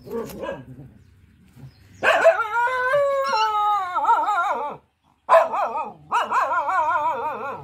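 Mother dog giving long, wavering, howling barks, two drawn-out calls, the first falling in pitch at its end, after a short yelp near the start: protective warning calls at a person near her puppies.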